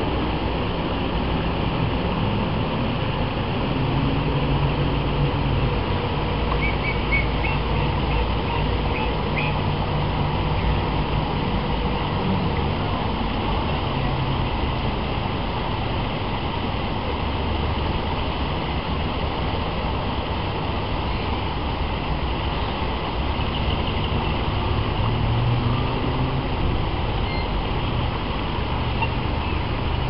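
Steady low outdoor rumble with hiss, with a few faint chirps about seven to nine seconds in.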